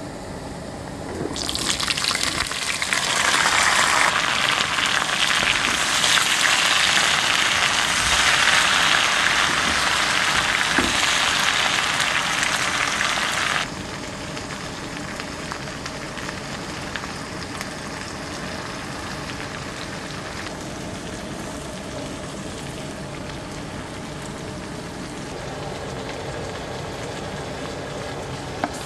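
Pork and yard-long beans sizzling in hot oil in a wok: a loud, even sizzle that starts about a second and a half in and drops suddenly to a softer, steady sizzle about 14 seconds in.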